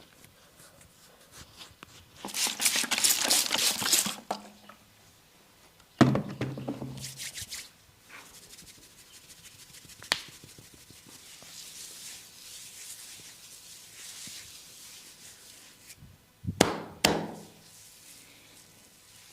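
Hand massage sounds: a fast flurry of slaps and taps about two seconds in, a loud thump at about six seconds, a stretch of soft rubbing on skin, and two sharp slaps near the end.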